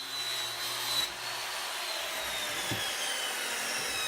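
A power tool's motor winding down: a hum cuts out about a second in, and a whine slowly falls in pitch over a steady rush of air.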